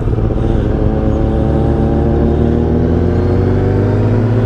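Kawasaki Ninja ZX-10R inline-four engine pulling hard as the bike accelerates, its pitch rising steadily after a brief dip right at the start, heard through the rider's helmet microphone.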